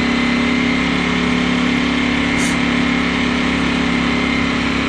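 2018 Ducati Panigale V4 Speciale's V4 engine running at a steady engine speed, heard from the rider's helmet mic over a haze of wind noise.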